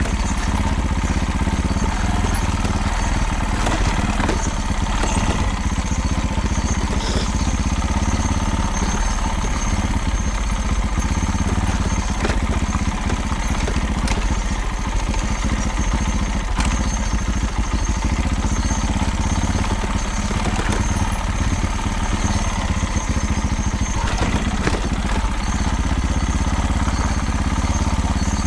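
A small vehicle engine idling steadily, with a rattle mixed in. The rattle is the abnormal noise whose cause the owner has not found.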